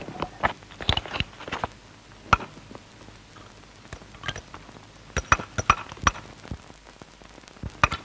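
Hand hammers striking whetstone stone as slabs are split: irregular sharp knocks and clinks, loudest in a cluster at the start, with a quicker run of strikes a little past halfway.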